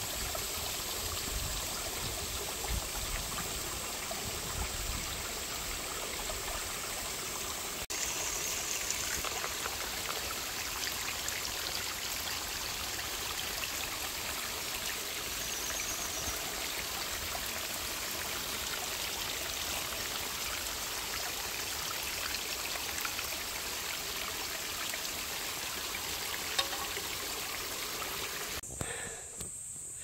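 A small mountain stream trickling over rocks, a steady sound of running water that cuts off abruptly near the end.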